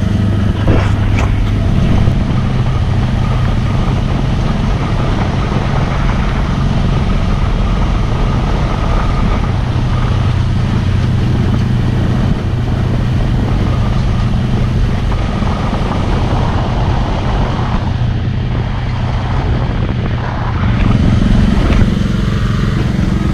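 A Polaris Ranger utility vehicle carrying a spray rig, its engine running steadily as it drives across a field.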